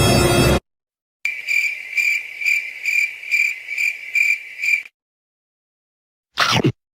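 Cricket chirping sound effect, the 'awkward silence' meme: a high trill pulsing about two and a half times a second for some three and a half seconds, starting and stopping abruptly. Near the end comes a brief, sweeping electronic-sounding burst.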